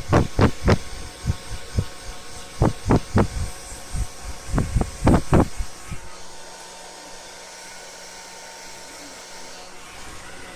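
Hair dryer running, with a series of loud, irregular bumps in quick clusters for the first six seconds, then a steady blowing noise with a faint hum.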